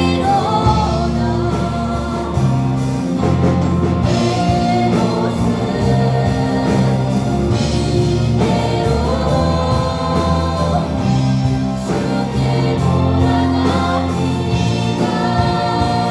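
Praise-and-worship song sung by a group of singers over instrumental accompaniment with a steady bass line.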